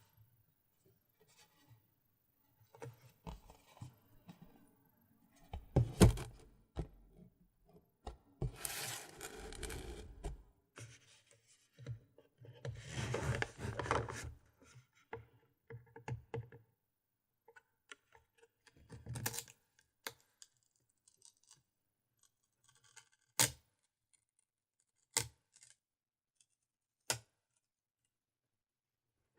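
Hands handling GoPro Hero 4 Silver packaging: two stretches of rustling, a knock, then single sharp clicks or taps a few seconds apart in the second half, with quiet gaps between.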